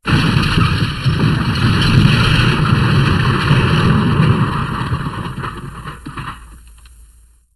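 Edited version of the MGM Elephant Smash sound effect: a loud, dense noise that starts suddenly, holds for about five seconds, then fades out.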